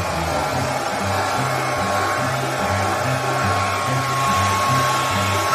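Handheld hair dryer running steadily, blowing air into a dog's fur: a constant rushing blow with a thin steady whine. Low notes of background music change under it.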